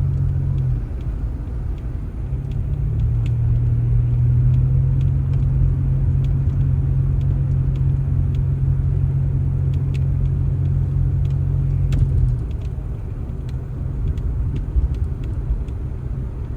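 Engine running with a steady low hum over a rumble; the hum breaks off briefly about a second in, returns, and stops about twelve seconds in, leaving the rumble.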